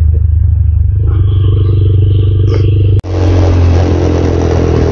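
Motorcycle engine running at a steady cruising speed, heard from the rider's helmet microphone. About three seconds in the sound cuts out for an instant, and after that a louder rush of wind joins the engine.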